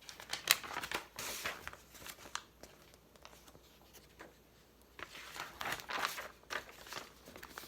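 Rustling and crinkling of a picture book being handled and its pages turned, in two spells with a few sharp clicks: one at the start and another from about five seconds in.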